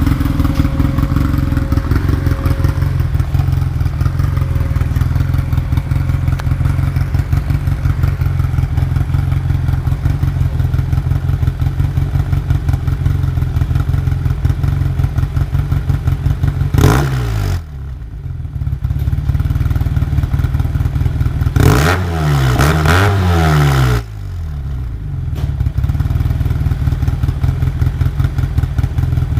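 Arctic Cat Wildcat Sport UTV engine running through a newly fitted HMF aftermarket muffler with the catalytic converter removed, giving the exhaust a lot more bark. It runs steadily, with one sharp rev a little past halfway and a few quick rises and falls in revs a few seconds later.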